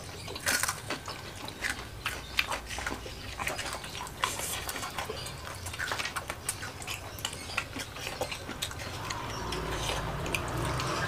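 Close-miked chewing of crispy battered fried mushrooms and rice: irregular crunches, wet mouth clicks and lip smacks.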